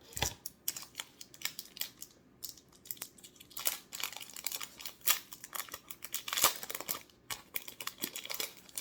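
Plastic packaging from a trading-card deck crinkling and rustling as it is handled and unwrapped, with irregular short clicks and rustles throughout.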